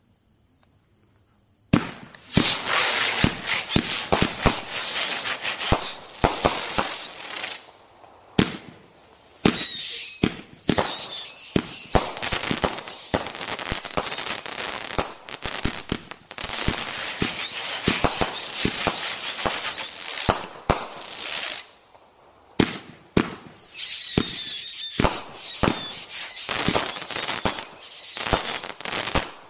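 Hydrogen Bomb multi-shot consumer fireworks cake firing: after a near-silent start, a dense run of shots and crackling bursts about two seconds in, with shrill wavering whistles in two stretches and two brief lulls.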